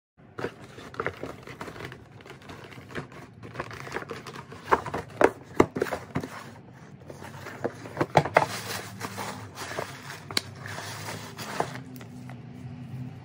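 Hands handling a cardboard shoebox and rustling the tissue paper inside it: a run of crinkling and crackling with sharp clicks and knocks, thickest about five seconds in and again about eight seconds in.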